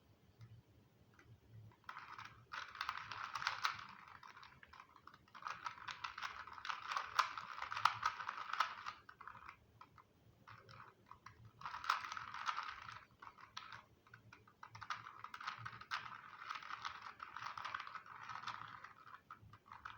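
A 2x2 Rubik's cube being turned by hand: rapid plastic clicking of the layers as they twist, in four bursts of a few seconds each with short pauses between them.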